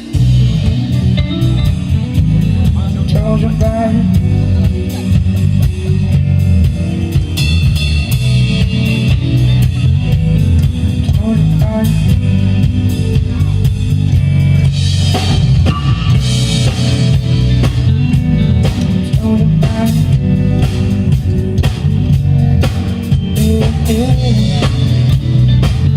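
Live band playing an instrumental passage on drum kit, guitar and bass, loud and steady, with no vocals.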